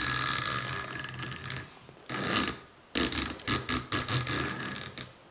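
Remington Model 8 barrel ratchet nut being turned off, its ratchet teeth clicking and rasping in three quick runs.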